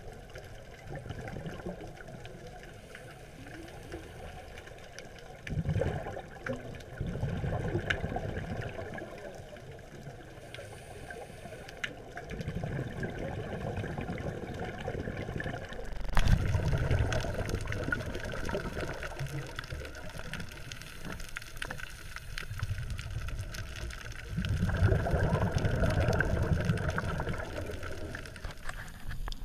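Underwater sound of a scuba diver breathing through a regulator: several gurgling bursts of exhaled bubbles, each a few seconds long, over a steady underwater background.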